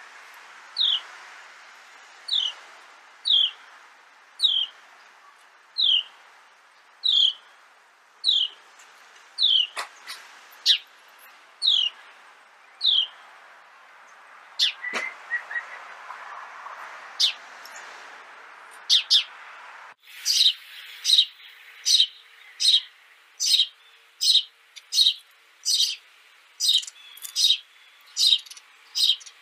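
Eurasian tree sparrows chirping: a steady series of short, falling chirps about once a second over a steady hiss. About twenty seconds in, the hiss cuts off and a faster run of chirps follows, about two a second.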